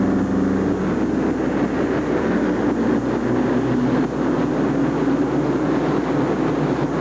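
Two monster truck engines running hard at full throttle as the trucks race side by side over dirt jumps, one of them the diesel-powered Texas Toy, as a loud, steady, dense engine noise.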